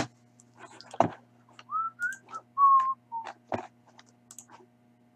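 A person whistling four short notes in the middle, the first rising, while the plastic shrink wrap on a box of hockey cards crinkles and tears with a few sharp crackles.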